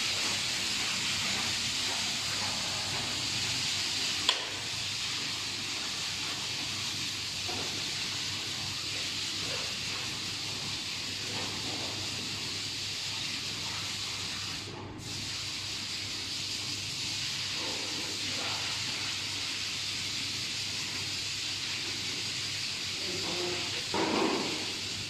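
A steady hiss with a single sharp click about four seconds in.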